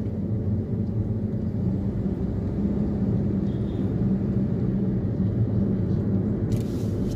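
Steady drone of a car's engine and tyres heard from inside the cabin while cruising, with a brief hiss about six and a half seconds in.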